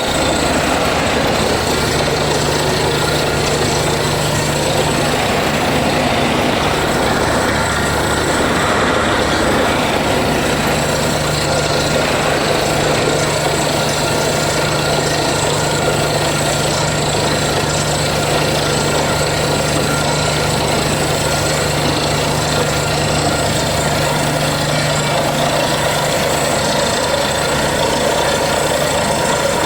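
Borewell drilling rig running steadily, a constant heavy engine and machinery drone under a dense noise haze.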